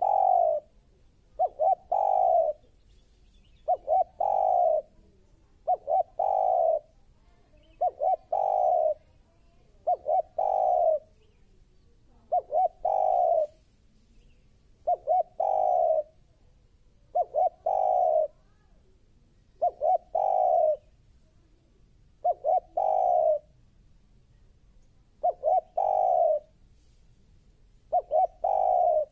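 Spotted dove cooing in its repeated phrase, two short notes and then a longer coo, about every two to two and a half seconds.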